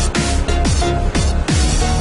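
Electronic dance music with a steady beat and falling bass sweeps.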